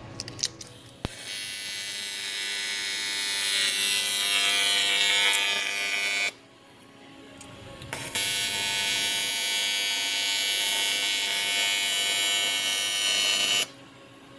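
MIG welder arc buzzing and crackling in two runs of about five seconds each, starting and stopping sharply, with a short pause between them.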